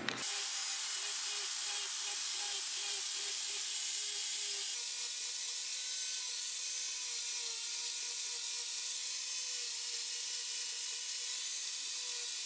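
Angle grinder with a sanding pad running against wood: a steady sanding hiss over the motor's faint whine, which steps slightly higher about five seconds in.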